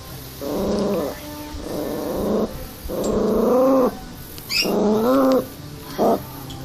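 A papillon growling in a run of five grumbling growls, the last one short, with the pitch bending up and down within each. They are warning growls at something moving in the pool.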